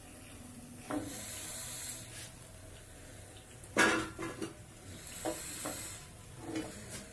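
Papdi deep-frying in hot oil in a kadhai with a faint sizzle, while a perforated steel skimmer clinks and scrapes against the pan and a steel plate as fried pieces are lifted out. Several sharp clinks, the loudest a little under four seconds in.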